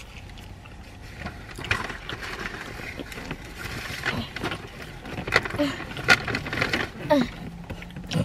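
Close-up chewing and mouth sounds of someone eating a sauced chicken wing: a run of wet smacks and clicks as she bites and chews.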